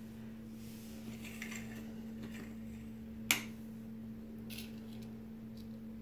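Steady low electrical hum, with faint rustling and then a sharp click a little after three seconds in and a lighter one about a second later, as a hand handles a plastic hCG test cassette on a granite counter.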